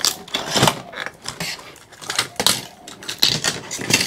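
Metal parts and hand tools clattering while a display monitor's steel chassis is taken apart by hand: a string of irregular clanks and clicks.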